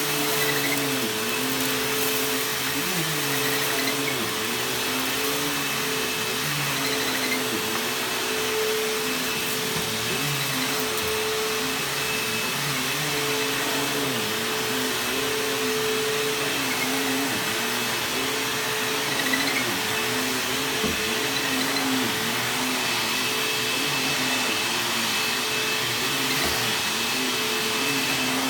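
Bissell bagless upright vacuum cleaner running steadily on carpet, with a steady motor whine over the rush of air; its lower hum dips briefly every second or two as it is pushed over the floor.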